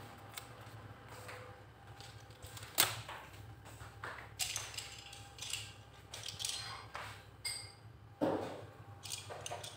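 Wood-handled screwdrivers being picked up and handled: scattered light clicks and knocks, the sharpest about three seconds in.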